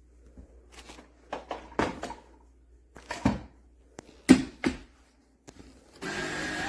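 A few knocks and clicks of the Kenmore DS1020 cordless stick vacuum being handled, then its motor switches on about six seconds in and runs with a steady whir.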